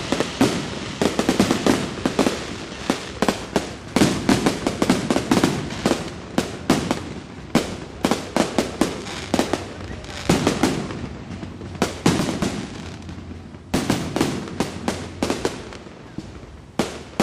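Fireworks going off in rapid, irregular volleys of sharp bangs and crackles, easing off briefly a few times before new volleys start.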